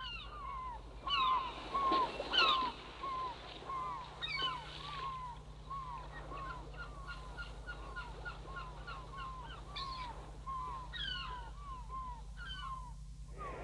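Seagulls crying over and over, many short calls that rise and fall in pitch, louder in the first few seconds, over a faint steady hum.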